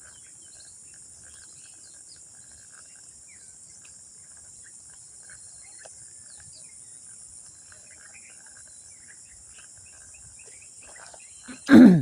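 Steady high-pitched insect trilling with scattered faint chirps. Near the end comes one short, loud sound.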